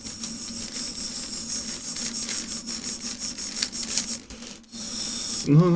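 Rubik's cube being turned rapidly, its plastic layers rasping and clicking in a continuous stream. Just before the end a loud steady pitched tone starts.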